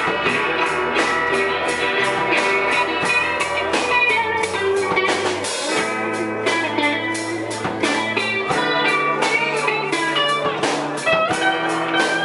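Live rock band playing: two amplified electric guitars, electric bass and a drum kit with a steady beat.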